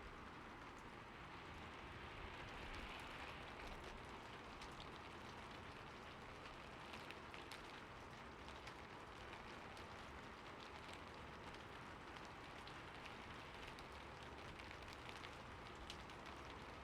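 Steady rain falling, with many separate drops ticking sharply through the even hiss.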